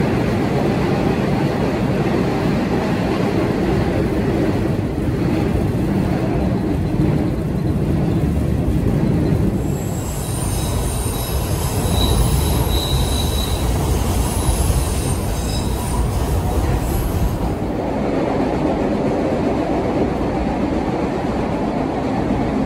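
MBTA Red Line subway car in motion, heard from inside: a steady rumble of wheels on rail. From about ten seconds in, the steel wheels squeal on a curve in several high ringing tones for about seven seconds. Near the end the rumble changes as the ride switches to a newer car.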